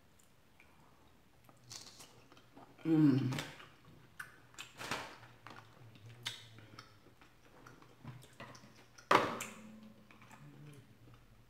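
Close-miked eating sounds: wet chewing and a short 'mmm' about three seconds in, then the crackle of king crab leg shell being handled. A sharp snap just after nine seconds comes from kitchen scissors cutting through the shell.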